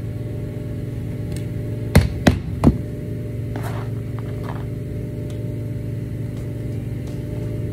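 Three quick hammer knocks on a nail through a metal J-bar carpet trim about two seconds in, then a brief rustle of nails being picked out of a cardboard box, over a steady low hum.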